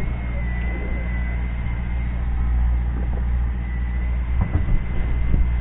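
Fishing boat's engine running steadily as a low hum, with a thin high whine over it and a few knocks about four and a half seconds in.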